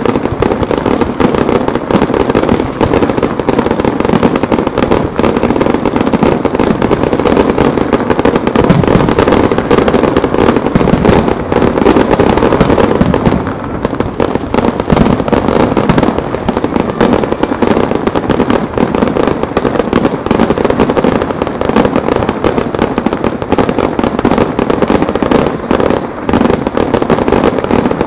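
Fireworks display: a rapid, unbroken barrage of aerial shell bursts and crackle, easing briefly about halfway through before picking up again.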